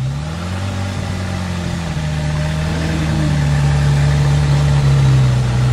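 Zenvo TSR-S's twin-supercharged V8 idling with a steady low drone. The pitch rises slightly in the first second and then holds.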